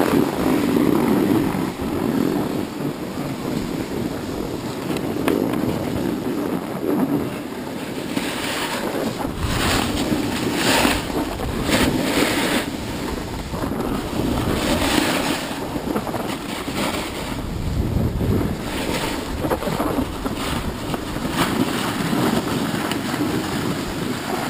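Snowboard sliding fast down a packed, choppy slope: the board's base and edges hiss and scrape over the snow, with wind rushing across the camera's microphone. The scraping swells in several louder surges from about eight to sixteen seconds in.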